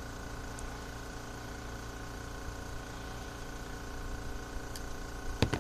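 Steady mechanical hum from a running motor, with two sharp clicks near the end.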